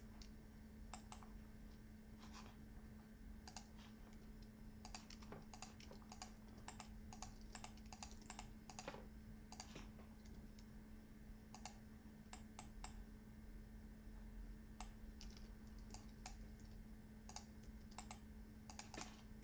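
Scattered computer keyboard taps and mouse clicks, irregular and fairly faint, over a steady low hum.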